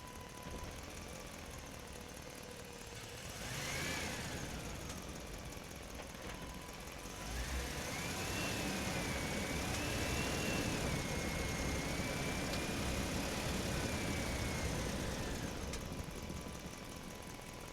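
A small motor running with a wavering whine over a rumble, louder for about eight seconds in the middle, with a brief rising-and-falling whine about four seconds in.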